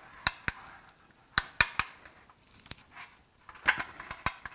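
Metal utensil clinking and scraping against a roasting pan as a cooked piece of meat is handled in it: a series of short, sharp clinks in small clusters, with a quieter gap around the middle.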